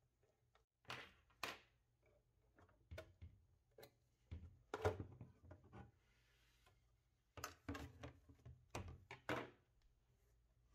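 Faint, scattered clicks and light knocks of a small screwdriver, screws and the printer's sheet-metal bottom cover being handled as the cover is unscrewed and lifted off. The loudest knock comes a little under halfway through.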